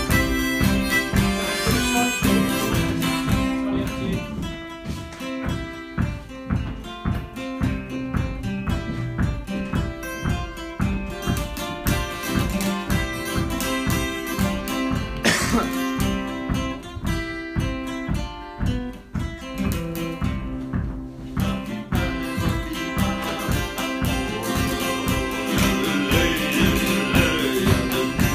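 Background music: a lively Scottish ceilidh dance tune on acoustic instruments with a steady quick beat.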